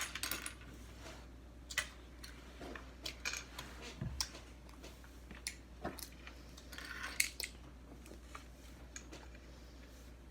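Small plastic LEGO pieces clicking and rattling as they are handled and fitted together, in scattered irregular clicks.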